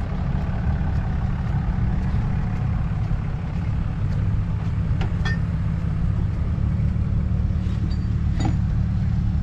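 A vehicle engine idling in a steady low rumble, with a few sharp clicks and knocks about halfway through and again near the end.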